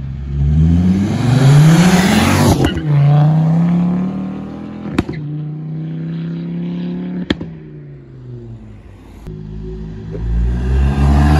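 Performance car engines accelerating away, revs climbing, dropping at a gear change with a sharp crack a few seconds in, then running steadily. Two more sharp cracks follow before the revs climb again near the end.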